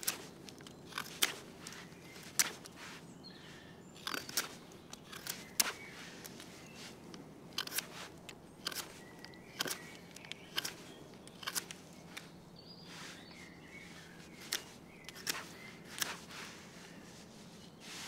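Swiss Army knife blade whittling a wooden stick, each stroke taking off a shaving with a short, sharp slicing scrape. The strokes come unevenly, about one a second.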